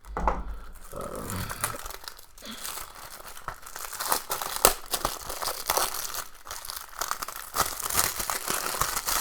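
Packaging on a Blu-ray case crinkling and tearing as it is pulled open by hand, a dense run of irregular crackles and rustles.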